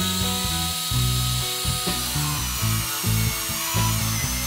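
Background music over a drill press boring into plywood with a Forstner bit; the cutting noise comes up about halfway through.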